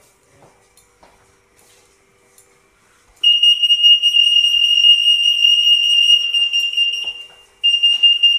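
RF anti-theft (EAS) security gate alarm going off with a steady high-pitched beep tone. It is quiet at first, starts abruptly about three seconds in, sounds for about four seconds, fades out briefly and starts again near the end. This is the sound a store exit gate makes when it detects a security tag passing through.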